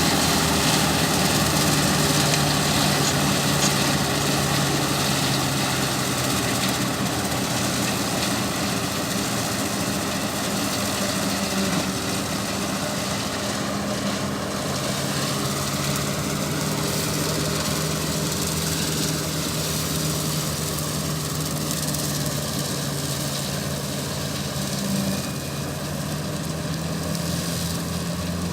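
An engine running steadily throughout, with a low hum whose pitch shifts slightly partway through.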